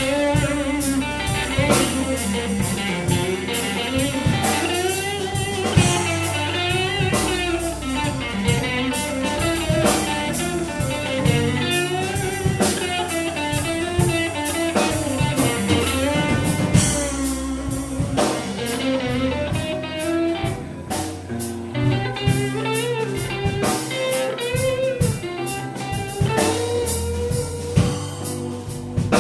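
Live blues band playing an instrumental break: an electric guitar plays lead lines with bent, wavering notes over a drum kit and bass.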